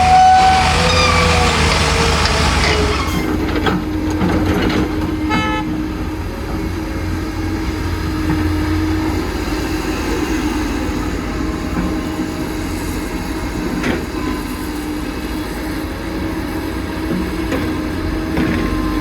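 Heavy earthmoving machinery running steadily: the diesel engine of an excavator or dump truck humming at a constant pitch, with a few brief gliding tones in the first three seconds.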